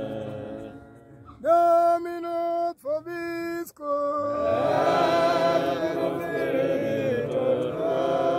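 Congregation chanting a hymn without instruments. The group singing dies away, a single voice holds two long notes, and the group comes back in singing together about four seconds in.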